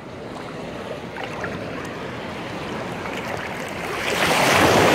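Small waves lapping and washing in shallow sea water at the shoreline, swelling to a louder wash of a wave near the end.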